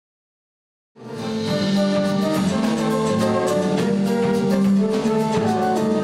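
Live jazz band playing: a flute melody over electric bass, keyboard and drum kit with cymbals. The music starts suddenly about a second in.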